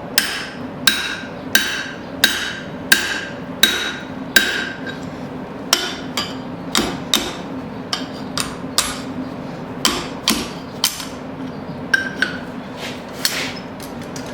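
Hand hammer striking a drift to open up a punched hole in a hot steel horseshoe on the anvil: about twenty sharp, ringing blows at a steady pace of one to two a second, with brief pauses about five and eleven seconds in. A steady low hum runs underneath.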